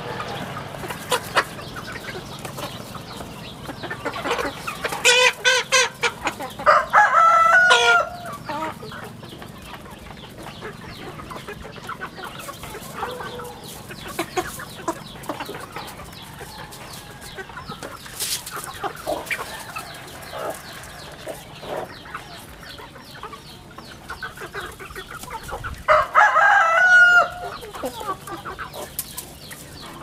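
Young chickens clucking and calling while feeding. There are two louder bursts of crow-like calls, one about five to eight seconds in and one near the end.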